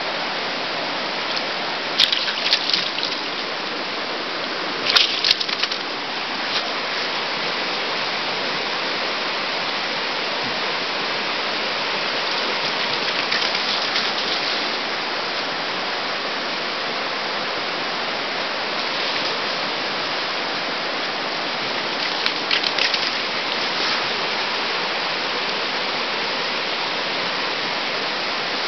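Steady rushing of a shallow, fast river, with a few short louder bursts of splashing or movement, two of them in the first six seconds and another pair about two-thirds of the way through.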